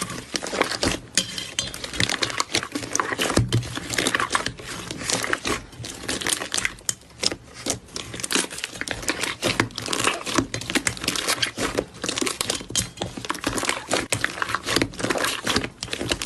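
Slime being squished and worked by hand: a dense, continuous run of small pops and crackles.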